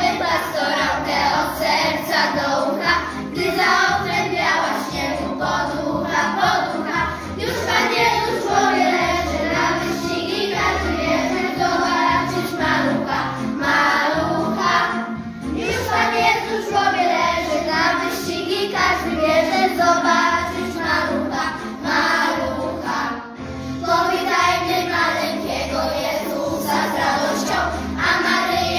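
A class of young children singing a Polish Christmas carol together in unison, over instrumental backing music with a steady beat.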